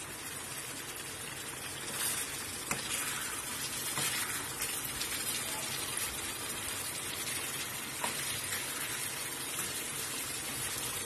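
Fish curry in coconut milk simmering in a metal pan with a steady sizzling hiss, and a few light clicks of a metal spatula against the pan as the hilsa pieces are turned.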